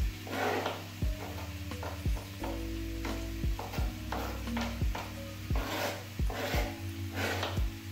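Onions and tofu sizzling in a frying pan as they are stirred, with irregular scraping strokes and knocks against the pan about every half second to second.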